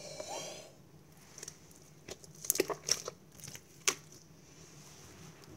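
Iceberg slime being squished and pressed by hand, with a soft squelch at first and then a string of sharp pops and crackles in the middle.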